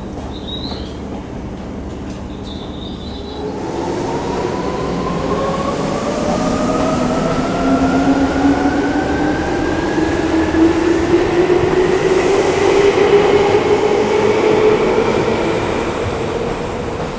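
Seibu 20000 series electric train pulling away. From about three seconds in, a motor whine of several tones rises steadily in pitch over the running noise and grows louder as the train gathers speed.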